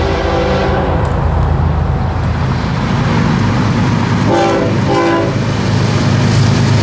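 Diesel freight locomotive's Nathan Airchime K5HL five-chime horn: a held chord that ends about a second in, then two short blasts a little after four seconds, over the steady low drone of the locomotive's engine.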